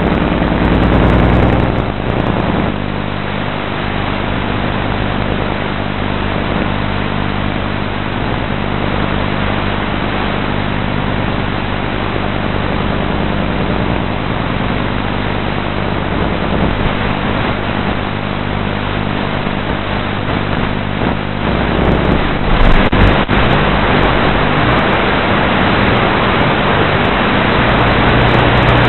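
Electric motors and propellers of a 450-size radio-controlled model, heard from its own onboard camera: a steady hum of several tones mixed with rushing air. The hum grows louder near the start, about three quarters of the way through, and again near the end.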